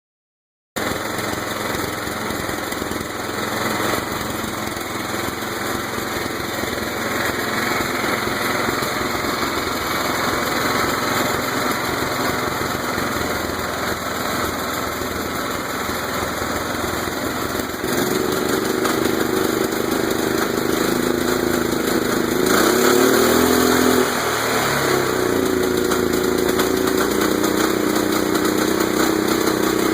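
Kohler CV15S single-cylinder engine on a Murray lawn tractor running at a lower speed, then sped up a little over halfway through, its pitch dipping briefly once and rising again. Above half speed the engine knocks or perhaps backfires, a fault the owner cannot yet diagnose in the long-stored engine.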